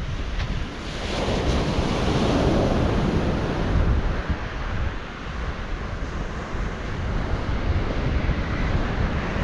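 Ocean surf breaking and washing on a beach, one wave swelling about a second in and fading out by about four seconds, with wind buffeting the microphone.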